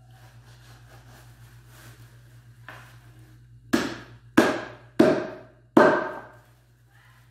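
Large kitchen knife chopping down through raw meat onto a wooden chopping board: a light knock, then four heavy chops about two-thirds of a second apart, each ringing briefly.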